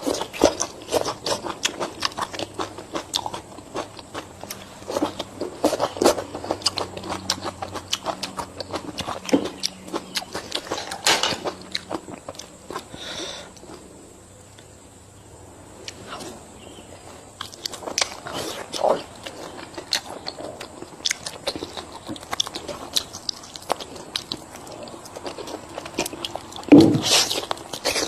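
Close-up eating sounds: a person biting, chewing and crunching food, with many short crisp clicks. A quieter pause comes about halfway through, and a louder thump near the end.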